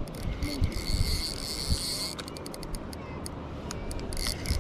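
Spinning reel being cranked to retrieve line, its gears whirring with a ratcheting click.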